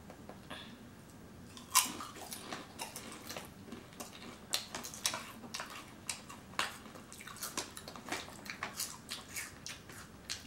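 Lay's potato chips crunching as they are bitten and chewed, a run of irregular crisp crunches starting about two seconds in.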